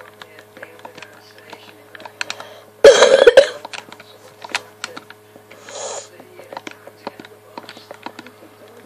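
Light, irregular clicks as a game's inventory menu is navigated and armour is swapped, with one short, loud cough about three seconds in.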